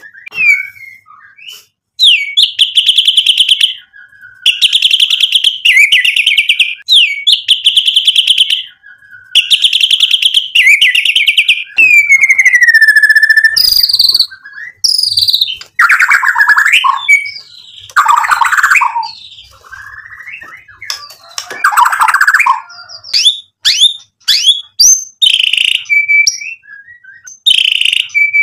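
White-rumped shama (murai batu) in full loud song, running through its repertoire of learned phrases. It gives rapid trilled phrases a second or two long, repeated several times, then a long falling whistle, harsher rasping notes and a run of quick short whistles near the end.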